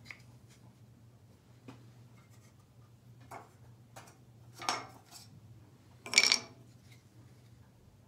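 Hands handling parts of a benchtop jointer that is not running: a few light clicks and short scraping rustles, the loudest two about four and a half and six seconds in, over a faint steady low hum.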